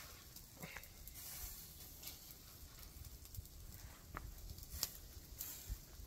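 Faint crackling from meat kebabs grilling on skewers over the embers of a wood fire, with sharp clicks scattered through.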